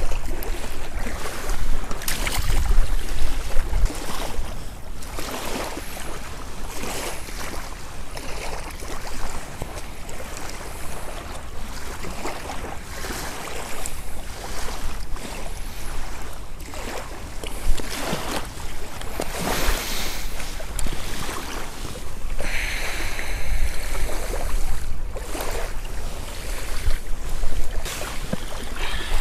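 Wind gusting over the microphone with a deep rumble, along with water washing at the riverbank. A short high whine comes about three-quarters of the way through.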